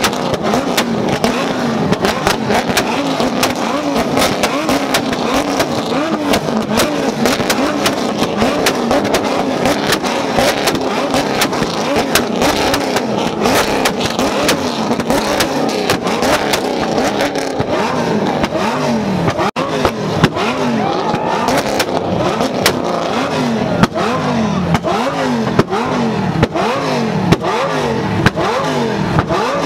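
C7 Corvette's V8 being revved over and over in quick blips, the engine note climbing and dropping about twice a second in the second half, with sharp pops scattered through it.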